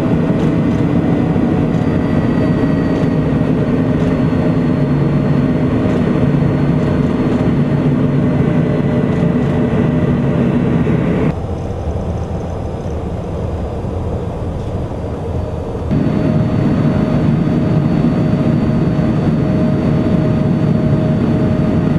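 HondaJet light business jet in flight: a steady jet engine rush with a high whine running through it. About halfway through it drops to a quieter, duller sound for a few seconds, then comes back at full level.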